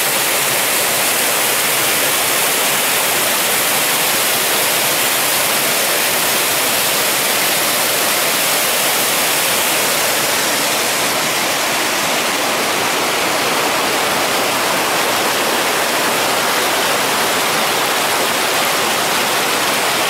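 Mountain waterfall and river swollen by rain: a loud, steady rush of water pouring over a rock ledge and churning into foam.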